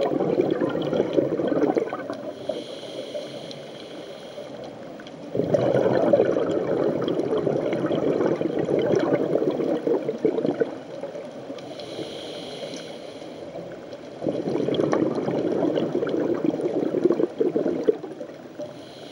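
Scuba diver breathing through a regulator underwater. Long rushes of exhaled bubbles, three in all, alternate with shorter, quieter inhalations that carry a thin hiss from the regulator.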